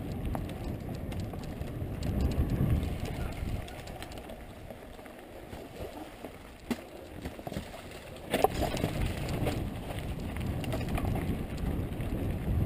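Mountain bike riding a rough dirt singletrack: wind buffeting the bike-mounted camera's microphone, with the rumble and rattle of the bike over the ground. Quieter for a stretch in the middle, then a couple of sharp knocks and louder rattling.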